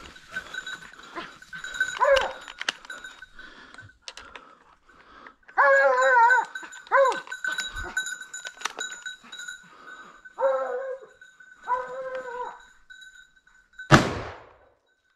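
Hunting hounds baying in drawn-out, wavering calls, several times over. About fourteen seconds in comes a single loud gunshot from a hunting rifle, with a ringing tail.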